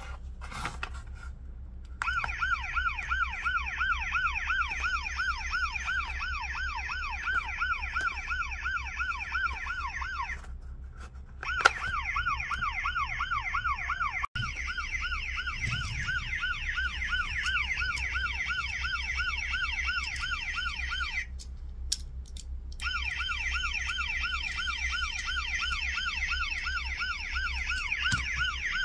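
Maisto AlarmBusters toy police car's built-in sound unit playing a fast-warbling electronic siren. It plays in three runs, breaking off twice, with clicks and knocks from handling the toy in the gaps.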